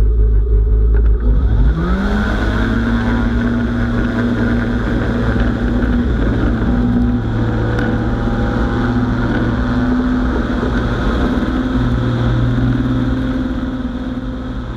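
Microlight trike's engine and pusher propeller opening up to full power: the engine note rises sharply about two seconds in, then holds steady, with wind rushing over the open trike, as on a take-off run.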